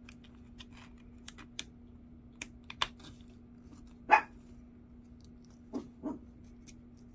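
Light plastic clicks and crackles as a tiny clear plastic clamshell of miniature strawberry slices is pried open. A dog gives one short, loud bark about four seconds in, then two softer ones near the end, over a faint steady hum.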